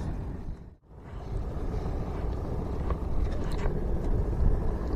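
Steady low rumbling outdoor noise, cut off briefly about a second in and then resuming.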